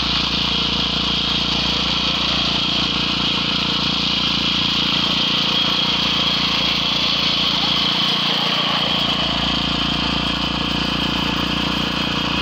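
Concrete surface plate vibrator running steadily while it compacts and levels freshly poured slab concrete: a constant motor hum with a high whine on top.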